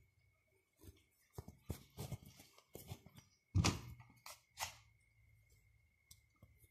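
Hand-sewing handling noise as needle, thread and fabric are worked close to the microphone: a scattering of light knocks and rustles, the loudest knock about three and a half seconds in.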